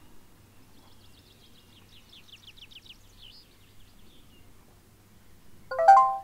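A songbird sings in the background, with a quick trill of rapid repeated notes about two seconds in. Near the end comes a short, rising electronic chime of a few quick notes, the loudest sound here.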